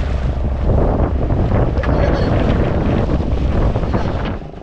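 Wind blasting the microphone over water rushing along the hull of a small fishing boat under way. The noise cuts off abruptly near the end.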